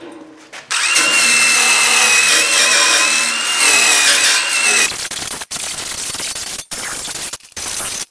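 Wire wheel on a cordless impact driver scrubbing surface rust off the steel grille rails of a Farmall Super M. It starts about a second in with a steady high motor whine over the scratching of the wires, then after about four seconds turns to rougher scrubbing, broken by three brief stops near the end.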